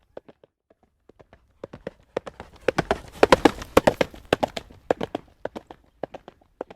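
Horse's hooves trotting on a hard road surface, a quick clip-clop that grows louder toward the middle and fades again, as the horse passes close by.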